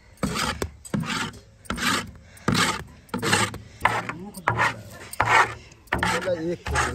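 Rasping scrape strokes, about two a second, of a scraper worked against a large iron pan (karahi) as thick, freshly boiled jaggery syrup is emptied from it into a tray.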